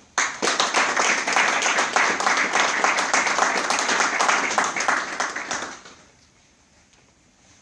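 A small audience applauding in a room: a dense run of hand claps that starts abruptly, keeps up strongly, and dies away about six seconds in.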